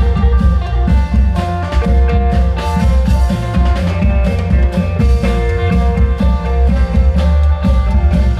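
Thai klong yao long-drum troupe music played through a sound system: heavy, steady drum beats under a line of held melody notes.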